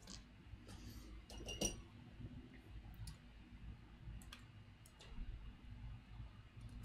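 Faint, irregular clicks of a computer mouse and keyboard over a low steady hum.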